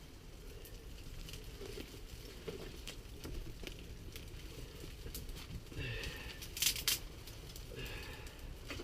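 Faint crackling and rustling of small twigs and birch bark being worked in a wood stove as a fire is lit, with two sharp snaps about seven seconds in.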